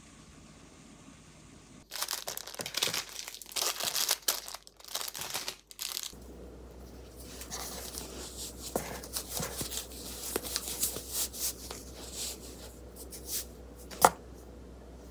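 Packaging crinkling and rustling as it is handled: loud, irregular crinkles and tearing about two seconds in, then quieter rustling, with one sharp click near the end.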